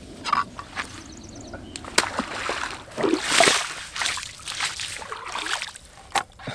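Lake water splashed and sloshed by hand over a plastic cutting board and bare rock to rinse them after filleting a fish. The splashing is loudest about three seconds in, with a couple of sharp knocks, one about two seconds in and one near the end.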